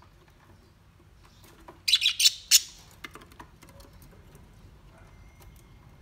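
Budgerigars chirping: a quick burst of several sharp, high chirps about two seconds in, followed by a few faint ticks.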